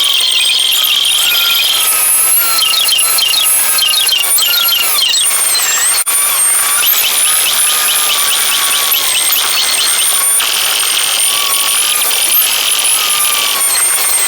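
Car driving audio played back at many times normal speed, turned into a loud, high-pitched whine with rapid warbling chirps and no low rumble. It breaks off for an instant about six seconds in.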